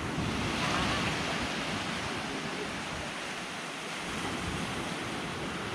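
Sea surf washing on the shore with wind on the microphone: a steady rushing noise.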